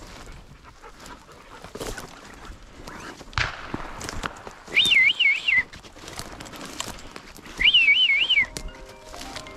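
Footsteps and the crackle of dry brush and twigs as someone pushes through thick cutover. Two loud warbling whistles, each about a second long with three quick up-and-down wavers, come about halfway through and again three seconds later.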